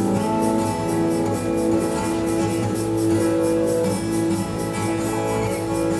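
Background music: acoustic guitar playing with held notes over a steady strummed rhythm.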